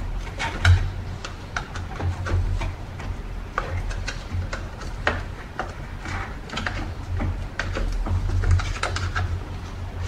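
Hard plastic clicking, knocking and rubbing as a Shark Rocket cordless vacuum's brush-head housing is handled and worked apart by hand, with many irregular sharp clicks over a low rumble of handling.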